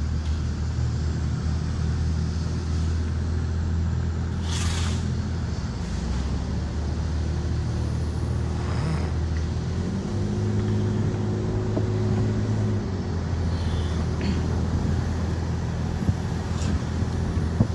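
Car engine and road noise heard from inside the cabin while driving, a steady low drone. About ten seconds in the engine note rises for roughly three seconds, then drops back. There is a brief hiss about five seconds in.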